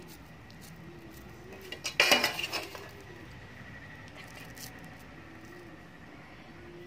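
Dishes clinking: a short burst of several quick clinks and knocks about two seconds in, with faint room sound around it.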